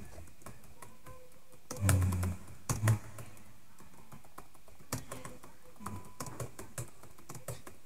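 Typing on a computer keyboard: a run of irregular key clicks as words are typed out. A couple of short, low voice sounds come about two and three seconds in.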